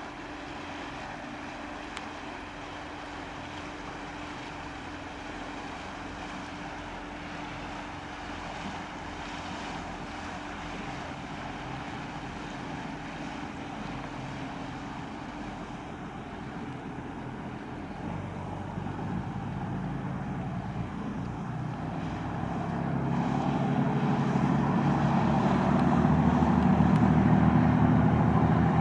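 A 16 m high-speed passenger boat's engines running with water rushing along the hull. The engine hum grows clearly louder from about two-thirds of the way in as the boat speeds up and throws a bigger wake.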